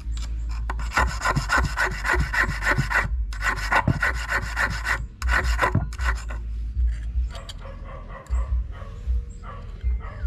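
A small hand-held metal-cutting blade stroking quickly back and forth across stainless steel wire, cutting the barb of a fishing hook. The rasping comes in three fast runs over the first six seconds, then goes on as lighter, fainter strokes.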